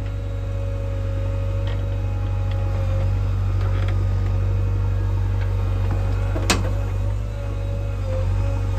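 Diesel engine of a JCB 3DX backhoe loader running steadily with a deep hum. A single sharp click comes about six and a half seconds in.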